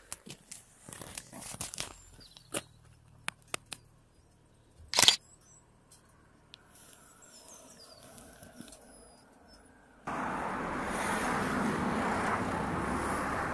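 Scattered clicks and knocks, with one sharp knock about five seconds in. About ten seconds in a steady rushing noise starts suddenly: wind and road noise from a Harley-Davidson motorcycle under way, recorded on a phone in the rider's backpack.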